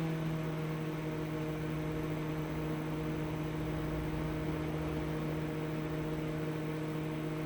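Microwave oven running with a steady, even hum, its magnetron newly replaced. It runs normally, without the abnormal roar it had before the repair.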